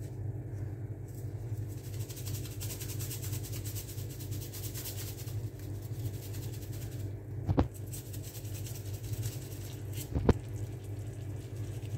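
Cream sauce simmering in a frying pan, a fine crackling sizzle over a steady low hum. Two sharp knocks, about two and a half seconds apart, come in the second half.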